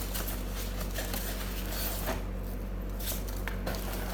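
Hands handling and rustling packaging and parts, in scattered brief rustles, over a steady low electrical hum.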